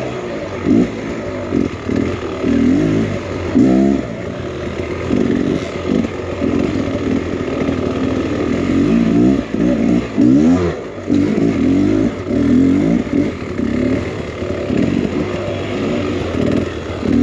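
Two-stroke enduro dirt bike engine revving up and down in repeated short throttle bursts, as the bike is ridden over rough technical trail.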